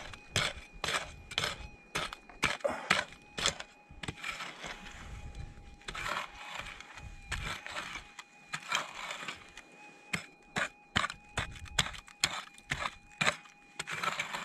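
Long-handled digging tool scraping and striking into hard, stony red soil, digging out a metal-detector target. The strokes come quickly, often about two a second, with a softer stretch around the middle.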